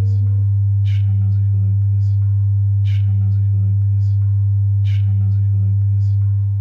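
Electronic music: a loud, steady low sine-tone drone with sharp clicks repeating about every two seconds and softer ticks between them. The drone begins to fade out near the end.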